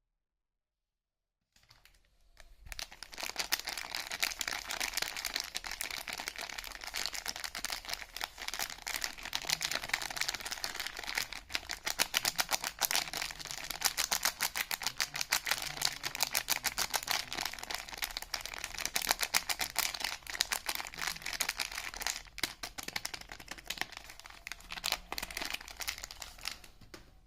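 Soap wrapping crinkling and tearing as a bar of soap is unwrapped by hand: a dense run of crackles that starts about two seconds in and stops just before the end.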